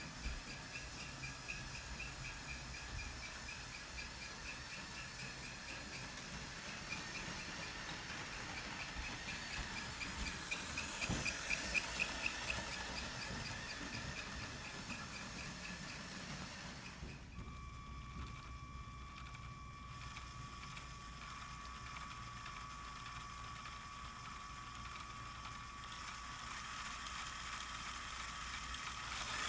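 LEGO model 2-8-0 steam locomotive running on plastic LEGO track, with fast, even clicking from its wheels and drive that grows louder about halfway through as it passes close. In the second half the clicking stops and a steady, thin high whine takes over.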